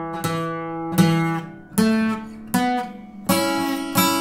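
Acoustic guitar playing a requinto lead line slowly, one picked note at a time, about one every three-quarters of a second, each note left to ring; the last notes are louder and brighter.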